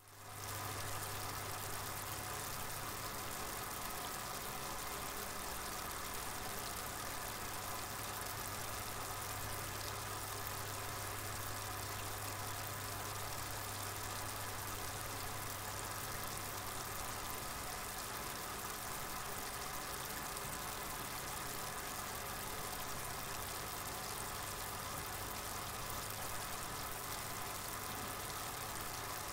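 A steady low electrical hum under a constant hiss, fading in at the start and running unchanged throughout.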